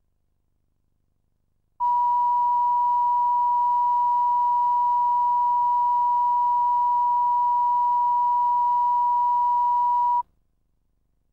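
Broadcast line-up test tone at the head of a programme tape, played over the countdown clock: one steady, pure, high-pitched beep held for about eight seconds. It starts about two seconds in and cuts off sharply.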